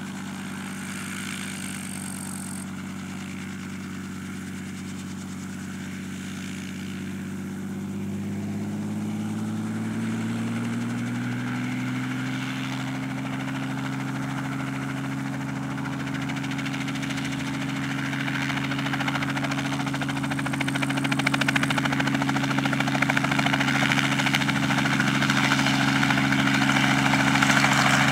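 Robinson R44 helicopter's six-cylinder Lycoming piston engine and rotor running on the ground, the pitch rising steadily several seconds in as it spools up. It then grows louder, with more blade noise, as the helicopter lifts into a hover near the end.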